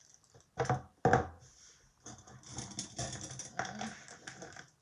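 Makeup brushes clattering against one another as they are handled: a couple of louder knocks about a second in, then a run of light, quick clicking rattles.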